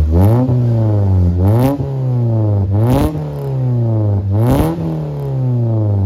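Mitsubishi Lancer Cedia's four-cylinder engine revved four times through an exhaust with the resonator deleted and an HKS muffler, each rev rising quickly, peaking with a short burst of noise and falling back to idle.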